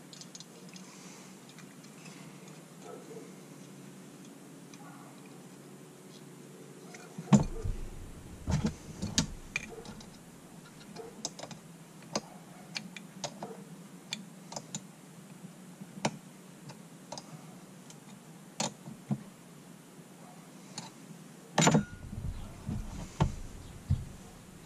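Small metal carburetor parts and a small wrench clicking and tapping as a Yamaha Grizzly carburetor is handled and reassembled on a workbench, with a cluster of heavier knocks about seven seconds in and another near the end.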